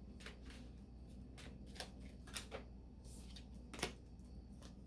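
Tarot cards being handled and shuffled, faint: scattered soft snaps and flicks of the cards at an uneven pace, the sharpest a little before four seconds in, over a low steady hum.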